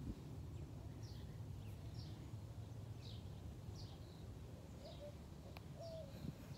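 A bird chirping over and over, short high notes that slide downward, about once or twice a second, over a steady low outdoor rumble.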